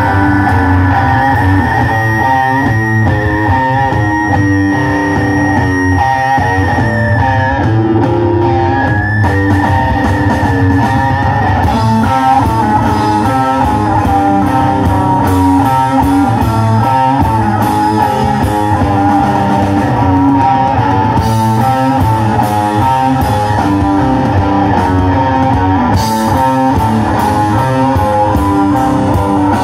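A rock band playing live and loud: electric guitars and bass guitar. A long held high guitar note runs through the first part, dipping in pitch around eight seconds in and coming back.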